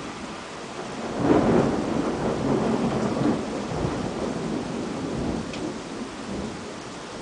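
Thunder over steady rain: a clap about a second in, followed by rolling rumbles that fade away over several seconds.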